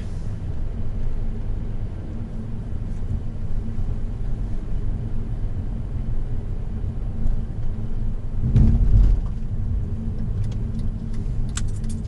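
Inside the cabin of a Honda Odyssey Absolute (RB3) minivan driving slowly: a steady low rumble of engine and tyres, with a louder thump about eight and a half seconds in and a few light clicks near the end.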